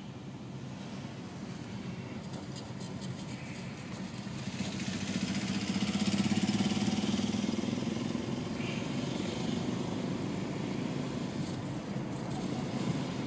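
Car driving in city traffic: steady road and engine noise, with an engine drone that swells about four seconds in and then eases off.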